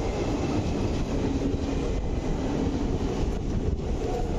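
Passenger coaches of the Shalimar–Puri Sri Jagannath Express rolling past on the arrival, a steady noise of wheels running on the rails that is strongest in the low range.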